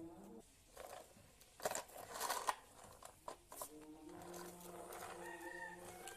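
A scratchy rustle of plastic toys being handled for about a second, then a simple tune of held electronic-sounding notes that changes pitch every half second or so.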